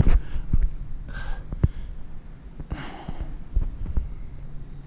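Irregular low thumps, a few to the second, with two brief rustling noises over a steady low hum.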